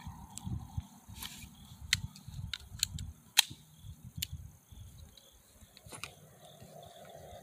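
A few sharp clicks and light knocks of a handgun and ammunition boxes being handled in a bag, the loudest about three and a half seconds in, over a low rumble on the microphone.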